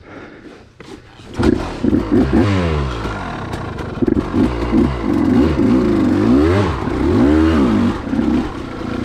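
KTM 200 XC-W two-stroke dirt bike engine being kickstarted. It catches about a second and a half in, after hard kicking, and is then revved up and down several times as it pulls away.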